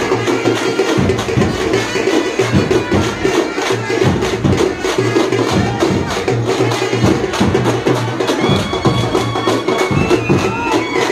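Loud, fast and steady festival drumming, many strokes a second, with the noise of a large crowd underneath.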